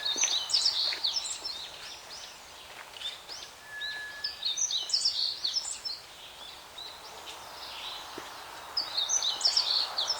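A songbird singing a phrase of quick, high chirping notes three times, with pauses of a few seconds between, over a soft steady background hiss of the forest.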